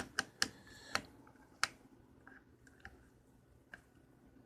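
A run of small, sharp clicks: about five in the first two seconds, then a few fainter, sparser ones. These are hands working the oscilloscope's controls and test leads.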